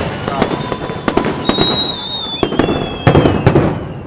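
Fireworks salute: a rapid series of sharp bangs and crackling bursts, with high whistles sliding slowly down in pitch through the middle. The bursts are loudest about three seconds in, then thin out near the end.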